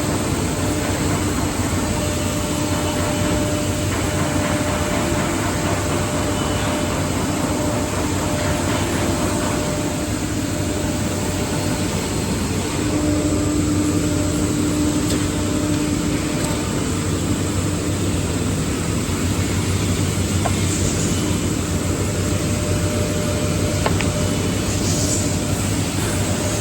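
5-axis CNC wood router running: a steady machine noise with a held tone from the spindle, strongest for a few seconds just past the middle.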